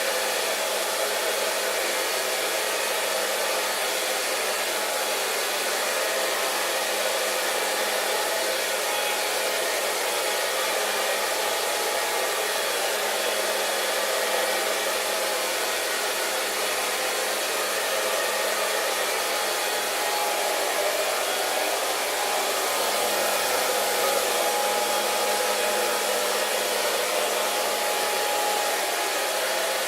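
Hair dryer running steadily: an even rush of blown air over a low motor hum.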